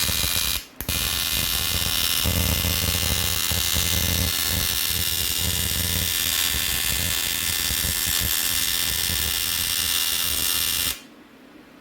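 Welding arc buzzing steadily while a hole in a car wheel rim is welded shut. It breaks off briefly about half a second in, resumes, and stops abruptly near the end.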